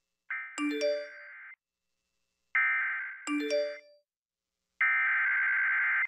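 Emergency Alert System SAME header sent over AM radio: three shrill bursts of digital data tones, each about a second long and a second apart, marking the start of a relayed severe thunderstorm warning. A phone notification chime of three rising ringing notes sounds over the first two bursts.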